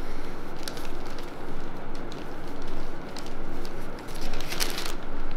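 Newspaper pages rustling and crinkling in someone's hands, with a few sharp crackles, the loudest about four and a half seconds in.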